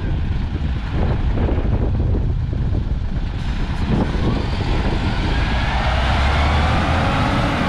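MAN TGA 40.400 truck's six-cylinder diesel engine running at standstill, picking up revs in the second half with a slowly rising whine.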